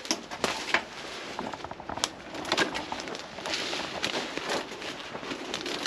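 Dry bramble canes crackling and snapping as they are cut and pulled out of a thicket, an irregular run of sharp snaps over a rustle of brush and dead leaves.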